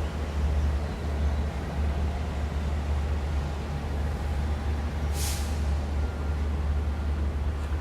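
Downtown street traffic: a steady low rumble of vehicle engines and tyres, with one brief, high hiss about five seconds in.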